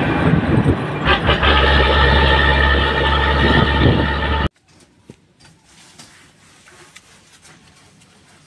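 Isuzu truck's diesel engine running with road noise as the truck drives along. About four and a half seconds in, the sound cuts off suddenly to a quiet background with a few faint clicks.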